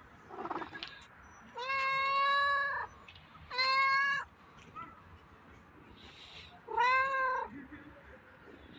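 Street cat meowing three times: a long, level meow, a shorter one, then one that rises and falls in pitch.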